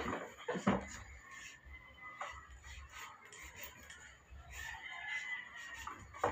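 A few hard strokes of a knife cutting through thick tire rubber, loudest within the first second. A rooster crows in the background about five seconds in.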